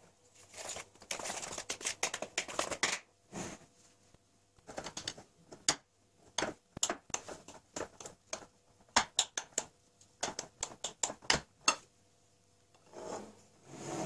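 Dry flour and sugar stirred in a plastic bowl, a scratchy rustle, then a metal spoon clicking and scraping many times against a glass dish of cubed butter, with a soft swish near the end as the butter is tipped into the bowl.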